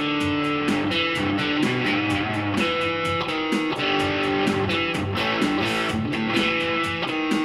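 Custom-shop electric guitar with Carvin alnico pickups playing a melody and chords in a steady rhythm.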